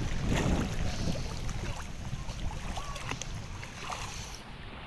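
Shallow seawater splashing and sloshing around a swimming child's kicking arms and legs, with a low rumble underneath.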